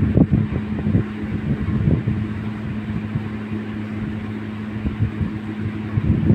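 Electric fan running with a steady low hum, its air rumbling irregularly on the microphone.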